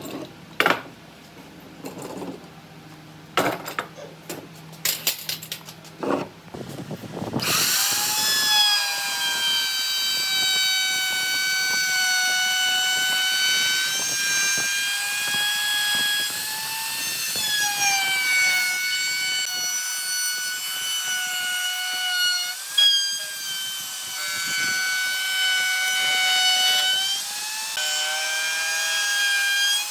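A few scattered knocks and clicks, then about seven seconds in an electric power tool's motor starts up and runs steadily with a high whine, its pitch dipping and recovering several times.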